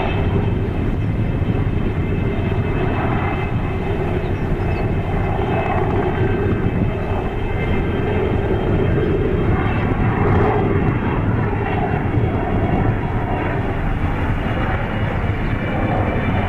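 Aérospatiale Alouette III helicopter flying past: steady rotor noise with the high whine of its Turbomeca Artouste turboshaft engine.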